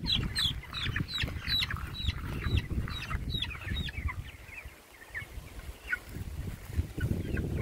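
Three-week-old broiler chicks peeping: short high calls that fall in pitch, several a second at first and fewer after the middle, over a low rumble.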